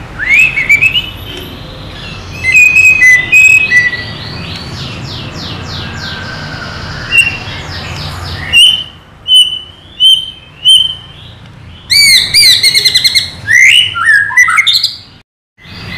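White-rumped shama (murai batu) singing a loud, varied song of clear whistles, sweeping slurs and fast trills in short phrases with brief pauses between them. This is the fired-up, agitated singing ('emosi') that keepers play to lure other shamas into song.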